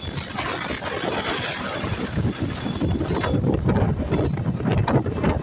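Train running on the rails: a steady low rumble with irregular clatter, and a thin high whine that fades out about three seconds in.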